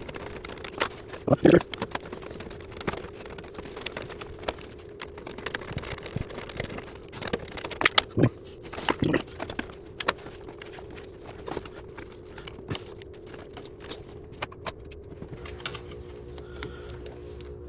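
Hand tools clicking and clinking on metal as the bolts holding an electric cooling fan are worked loose, with a few louder knocks, over a steady low hum.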